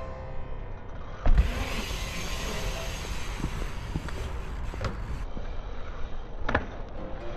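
Bicycle riding sounds: a heavy thump about a second in, then tyres rolling over stone paving with wind on the microphone, and a couple of sharp knocks later as the bike hops onto a concrete ledge and lands.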